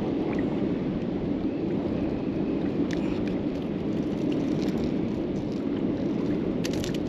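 Steady rushing noise of wind on the microphone and water around a kayak, with a few sharp clicks about three seconds in and near the end.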